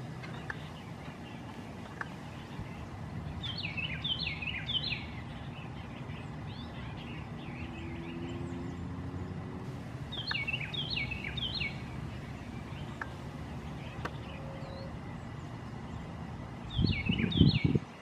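Eastern bluebird song: soft warbling phrases of quick notes, heard three times over a steady low background rumble. A louder low rumble breaks in briefly near the end.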